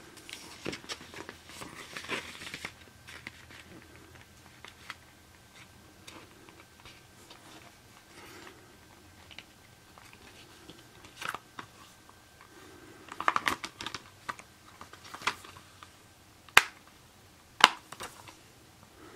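Clear plastic Blu-ray case being handled while its paper cover insert is pulled out and slid back under the plastic sleeve: soft rustling of paper and plastic with small clicks, and two sharper clicks near the end.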